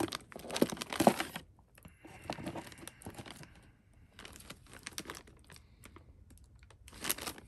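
Plastic bag crinkling and black modular power-supply cables with plastic connectors being handled and pulled out, a run of small clicks and rustles. Loudest in the first second or so and again briefly near the end.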